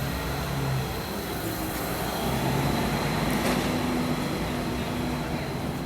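Steady engine-like running noise with a low hum and a faint high whine.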